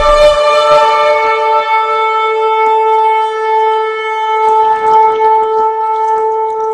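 A single long horn blast held on one steady note, with a few faint clicks in the second half.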